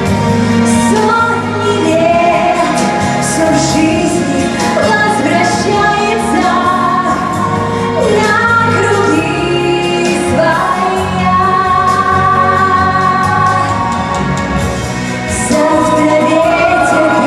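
A song: several voices singing together, choir-like with female voices, over instrumental backing music.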